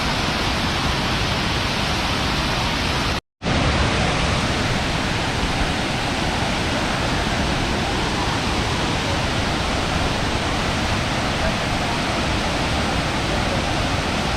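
Waterfall rushing: a steady, dense wash of water noise, cut off for a split second about three seconds in.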